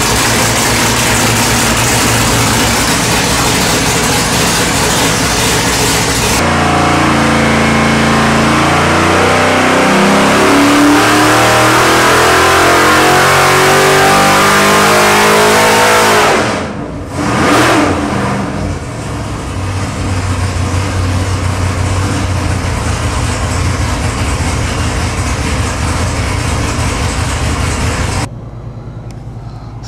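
Nelson Racing Engines 8.1-litre all-aluminium LS V8 with X-Ram intake, loud on an engine dyno. A dyno pull: the pitch climbs steadily for about ten seconds, the throttle is chopped, a short blip follows, and it settles to steady low-speed running at around 1,200 rpm.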